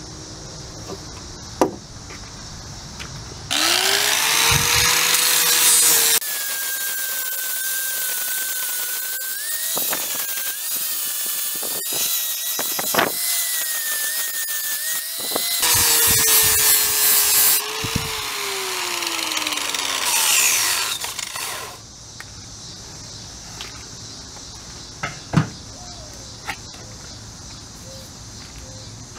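Electric angle grinder with a sanding disc spinning up a few seconds in and grinding down a bronze casting, loud and with a high whine, for about twelve seconds. Its motor then winds down with a falling pitch.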